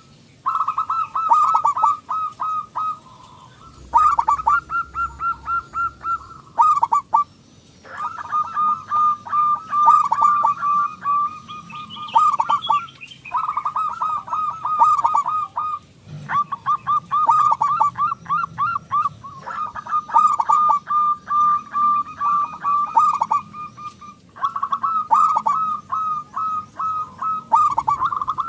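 Zebra dove (perkutut) singing: long runs of rapid, staccato cooing notes, repeated phrase after phrase with brief pauses between.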